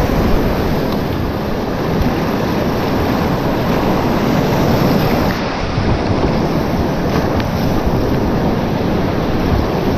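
Whitewater rapids rushing and splashing close around a kayak, a loud, steady roar of churning water.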